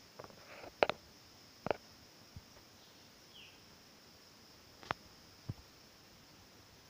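Quiet outdoor morning ambience among trees: a steady high hiss with a handful of isolated sharp clicks and knocks, and one faint short falling chirp about halfway through.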